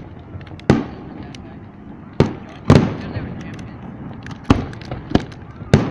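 Aerial firework shells bursting: about six loud, sharp bangs at uneven intervals, each trailing off in an echo, with smaller pops in between.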